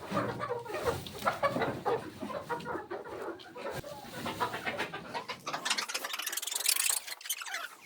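A flock of chickens clucking, many short overlapping calls. Near the end a loud rustling hiss takes over.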